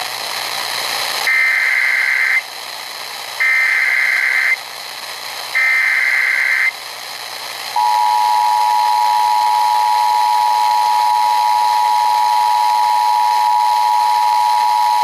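Emergency Alert System tones: three short, harsh digital SAME header bursts about a second apart, then the steady two-tone EAS attention signal that starts about halfway through and holds. Together they open a National Weather Service flash flood warning.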